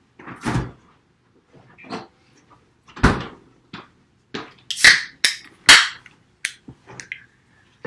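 Irregular knocks, bangs and clatter of a person moving about a room and handling things, with several sharper, louder bangs in the second half.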